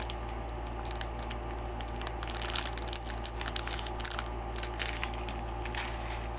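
Small metal screws, nuts and washers clicking and rattling in a clear plastic bag as it is handled, with plastic wrapping crinkling, over a steady low hum.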